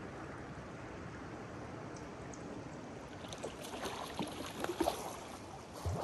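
Steady rush of a river's current. From about halfway, irregular sharp splashes and knocks grow louder, with one heavy low thump near the end.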